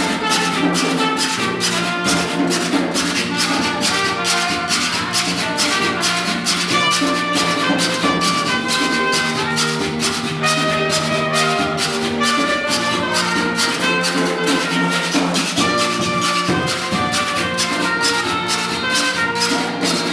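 Rake 'n' scrape band playing live: a carpenter's saw scraped in a fast, even rhythm of about four strokes a second under held melody notes and a drum.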